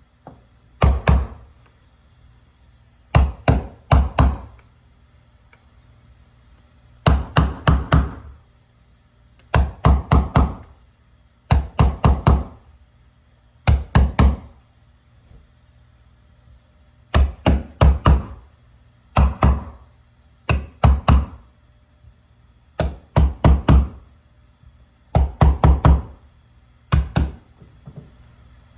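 A hammer knocking carpet down onto the stair treads and risers: quick bursts of three to five dull knocks, repeated every second or two, with a few short pauses.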